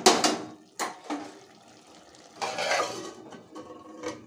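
Metal spatula stirring bottle gourd curry in a steel pot, knocking sharply against the pot twice near the start and scraping and clattering around the pan a couple of seconds in; the aluminium lid is then set back on the pot.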